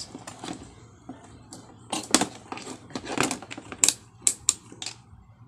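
Several sharp, irregular plastic clicks from a clamp multimeter's rotary selector dial being turned to the capacitance setting, mixed with handling taps of the meter and its test probes.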